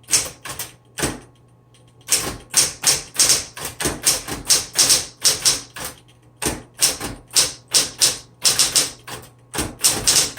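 1966 Smith Corona Coronet Electric typewriter being typed on: rapid, irregular runs of sharp keystroke clicks as the powered type bars strike, with brief pauses between runs, over the steady low hum of its running motor.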